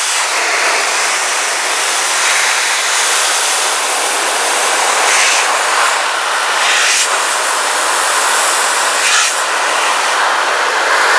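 Shelandy car and motorcycle blower dryer running, a steady rush of air from its nozzle as it blows water off a car's hard plastic running board. The hiss swells briefly a few times as the nozzle moves over the surface.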